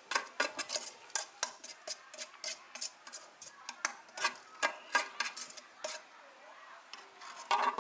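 Irregular sharp clicks and scrapes of a container knocking against the inside of a plastic bucket as ground soybean is emptied onto chopped pineapple, about two or three a second, thinning out after about six seconds, with a last cluster near the end.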